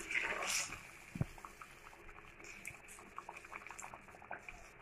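A ladle stirring thin curry gravy in a metal kadai just after water was added: a brief liquid slosh at first, a soft knock about a second in, then faint scattered ticks and pops from the wet, simmering gravy.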